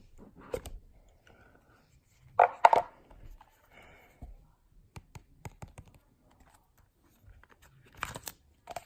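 AirPods Pro box and packaging being handled up close for ASMR: scattered light clicks, taps and scrapes, with two louder clusters of handling noise about two and a half seconds in and near the end.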